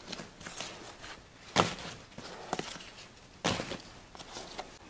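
Scuffs and small clicks of someone moving and handling things on a dirt floor, with two sharper knocks about two seconds apart.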